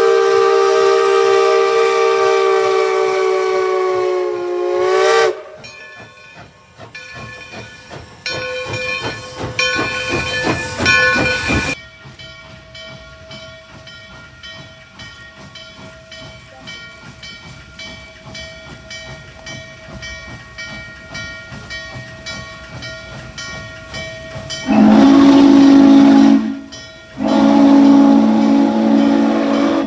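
Steam locomotive whistles. A loud chime whistle sounds several notes at once in a blast of about five seconds, its pitch sagging slightly as it shuts off. A quieter stretch of hiss and faint steady tones follows, and near the end a lower-pitched whistle gives two loud blasts.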